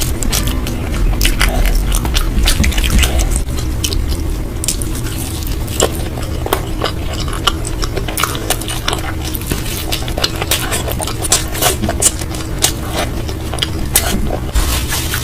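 Close-miked chewing and biting of food, with many short sharp crunches and mouth clicks scattered irregularly throughout, over a steady low hum.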